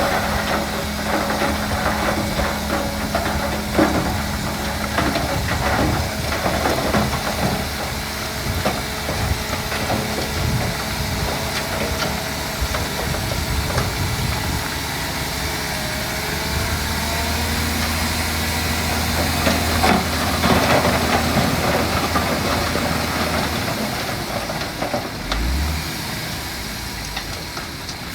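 Heavy diesel engines of earthmoving machinery running steadily, with scattered knocks and clatter, as stone is moved and tipped.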